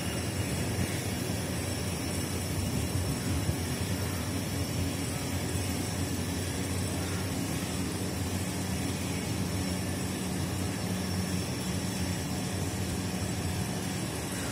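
A steady, even mechanical drone with a low hum, holding the same pitch and loudness throughout.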